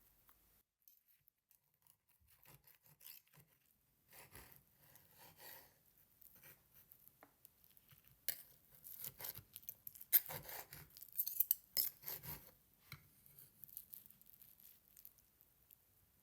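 Kitchen utensils scraping and rubbing, with light clinks, in irregular bursts that are busiest in the middle.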